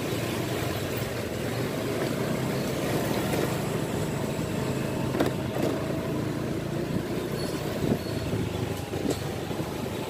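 Motorcycle engine running steadily at low road speed, heard from the rider's seat, with road noise and a few faint clicks.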